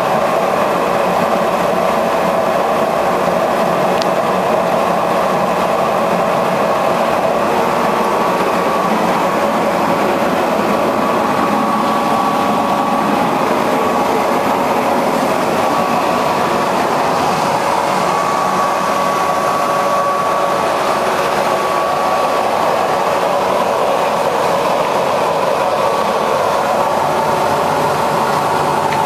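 Sanken washing machine running, its motor humming steadily with a constant whine and no breaks.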